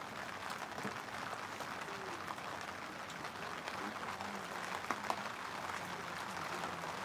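Steady pattering of rain, with two light clicks about five seconds in.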